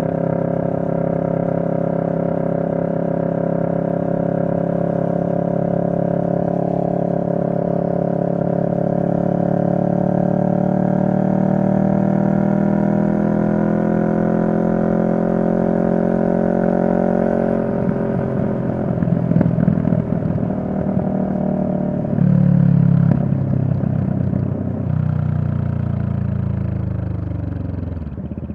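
CFMoto 650NK's parallel-twin engine running while riding, its pitch rising slowly. About two-thirds through it turns choppy and uneven, with a short louder surge a few seconds later and a falling pitch near the end.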